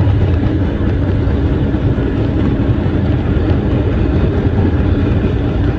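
New York City subway train running at speed on open track: a steady, loud rumble of wheels on rails and running gear, heard from the open end of the car.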